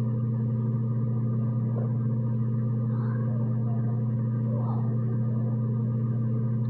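Steady low electrical hum, unchanging throughout, with a faint soft rustle now and then.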